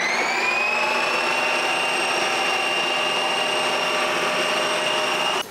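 Ninja CREAMi ice cream maker spinning on its Lite Ice Cream program, its motor whine rising over about two seconds and then running steady as the blade churns the frozen pint. The sound cuts off suddenly near the end.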